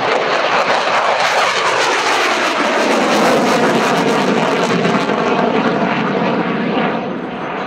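Saab JAS 39 Gripen's single Volvo RM12 turbofan running in afterburner during a hard banking pass: a loud, continuous jet roar with crackling, easing slightly near the end.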